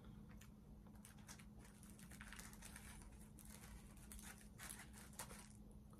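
Faint eating sounds: a plastic fork picking and cutting at fried tilapia in a styrofoam takeout container. It makes light, scattered crackly scrapes and clicks that stop a little before the end.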